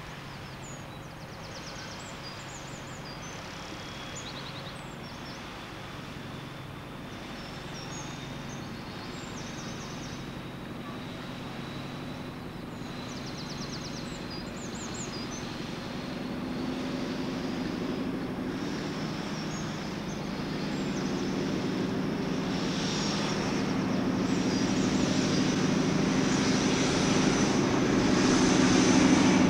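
InterCity 125 (HST) diesel power car approaching along the line, its engine drone growing steadily louder as it nears.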